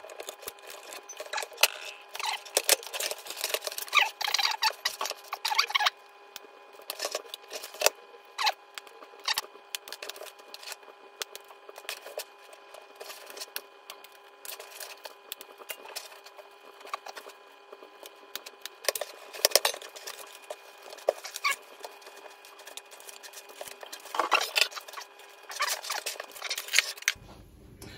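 Wire cutters snipping through cable ties and braided sleeving on a computer power supply's output leads, in a run of sharp irregular clicks, with the freed wires rustling and scraping as they are pulled apart.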